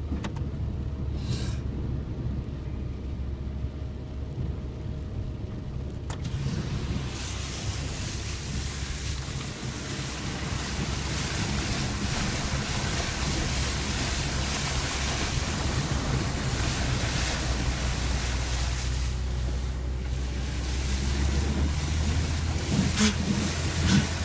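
A vehicle on the move: a steady low engine hum under a rushing noise that gets much louder about six seconds in.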